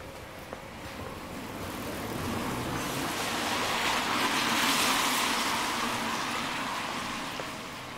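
A car passing on a wet road: the hiss of its tyres on the wet surface swells up over a few seconds, is loudest around the middle, then fades away.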